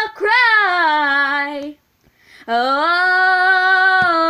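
A girl singing a cappella: the word "cry" on a note that rises and then slides down, and after a short pause a long held vowel.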